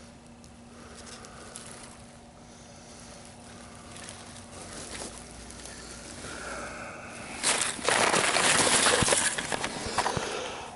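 Handling noise: quiet faint rustling at first, then about seven seconds in, loud scraping and rustling for about three seconds as the camera is moved and brushes against camouflage clothing and grass.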